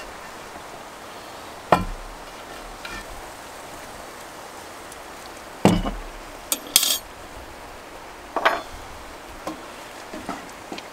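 Cast-iron Dutch oven and its lid being handled on wooden planks: scattered knocks and clanks a few seconds apart, the loudest about halfway, followed by a bright metallic clink.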